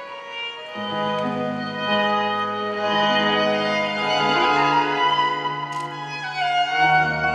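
Slow instrumental music of long held chords, with a deep bass line coming in about a second in and stepping lower twice later on.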